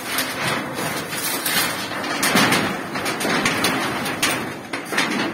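Bamboo poles and roof sheeting knocking, scraping and clattering as a bamboo-framed hut is pulled down by hand, with many knocks close together.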